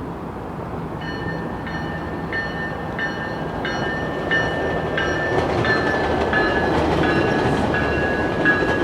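GO Transit commuter train pulling in, its rumble slowly growing louder. From about a second in, the locomotive bell rings steadily at about one and a half strokes a second.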